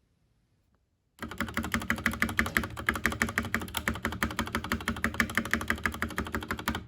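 Typing on a stock Akko 3087 mechanical keyboard with soldered pink Gateron linear switches and PBT double-shot keycaps in a plastic case: a fast, steady run of key clacks. It starts about a second in and stops just before the end.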